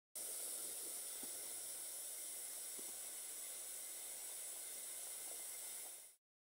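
A pot of salted water boiling hard with potatoes in it: a faint, steady hiss of bubbling water with a few soft pops, cutting off suddenly about six seconds in.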